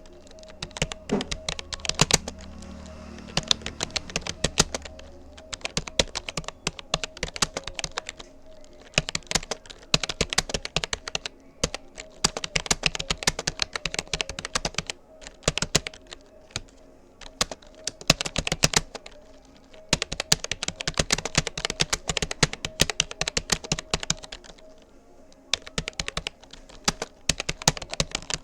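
Fast typing on a Rapoo computer keyboard: rapid key clicks in bursts of several seconds, with short pauses between words and phrases. A faint steady hum and, for the first few seconds, a low rumble lie underneath.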